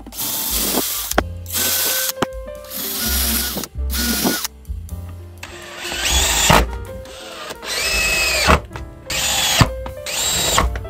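Electric drill boring pilot holes into a wooden block in several short bursts, then driving wood screws into them. In the second half the motor's pitch rises and falls with each of about four trigger squeezes.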